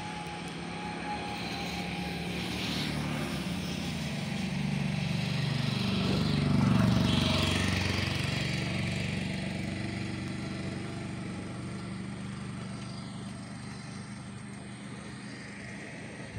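A motor droning steadily, swelling to its loudest about seven seconds in and then fading.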